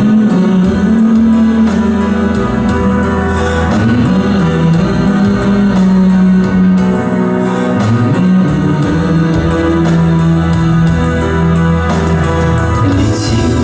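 Instrumental music led by guitar, with sustained notes over a light steady beat and no singing.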